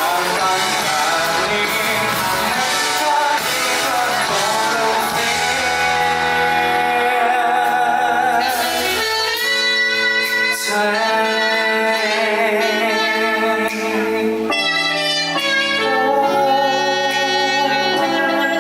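Live band music with a singer's sustained, wavering vocal line over guitar and accompaniment, from a concert performance of a Thai pop ballad.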